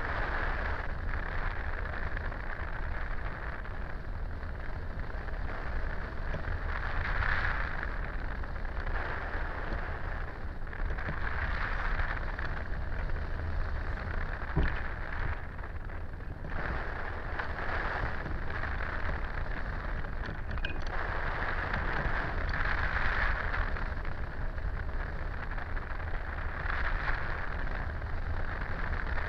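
Airflow rushing past a camera mounted on a hang glider in free flight: steady wind noise on the microphone, swelling and easing every few seconds.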